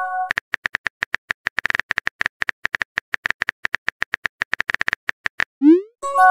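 Simulated phone-keyboard typing clicks, rapid and even at about nine a second for some five seconds, then a short rising swoop and a bright chime as the typed message is sent and pops up.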